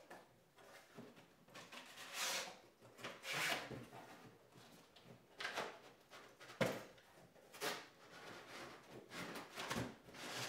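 Large cardboard shipping box being opened by hand: a series of scrapes and rustles as its flaps are pulled back and rub against each other, with one sharp knock about two-thirds of the way through, the loudest sound.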